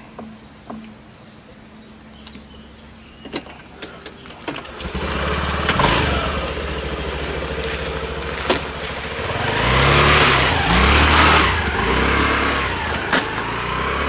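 A small motorbike engine starts about five seconds in after a few clicks, then runs and revs up and down.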